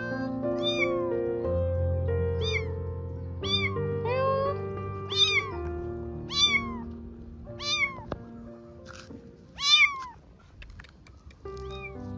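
A kitten meowing again and again, about nine short high-pitched meows, the loudest about ten seconds in, over soft background music.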